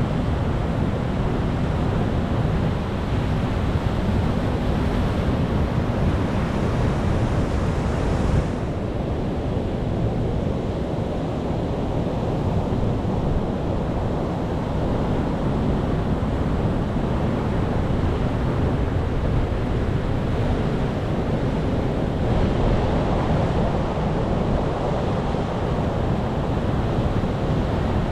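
Ocean surf breaking on rocks: a continuous rushing wash of waves with a heavy low rumble. The hiss of the surf eases about eight seconds in and builds again in the last third.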